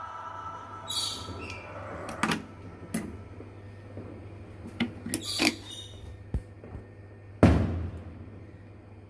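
Lovebirds giving a few short high chirps among scattered clicks and knocks, with one louder thump about seven and a half seconds in. Background music fades out at the start.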